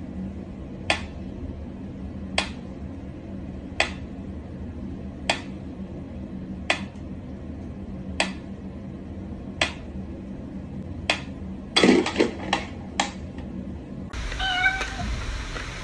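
Sharp single taps repeating about every second and a half, then a quick flurry of taps; near the end, a cat meowing.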